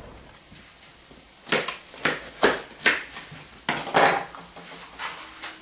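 Kitchen knife cutting a red bell pepper on a cutting board: a run of about eight short, crisp strokes, roughly two a second, starting about a second and a half in.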